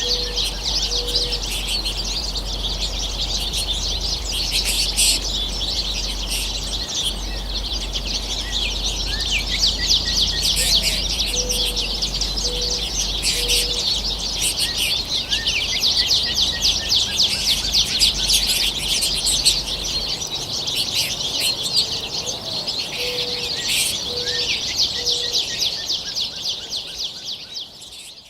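A flock of small finches twittering and chirping without pause, a dense chorus of high notes. Three times, a low call of a few evenly spaced notes sounds under the chatter.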